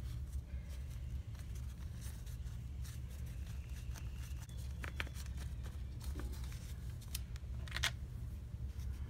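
A paper napkin pressed and dabbed on wet watercolour paper to blot up excess water, soft rustling and light taps, over a steady low hum. A couple of brief clicks stand out, about five seconds in and again near the end.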